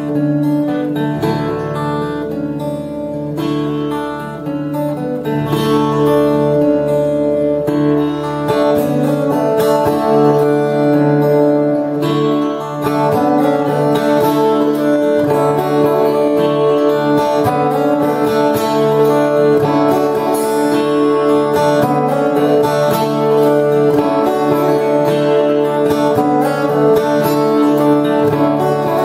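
Two acoustic guitars playing an instrumental passage together. The playing grows fuller and louder about five seconds in.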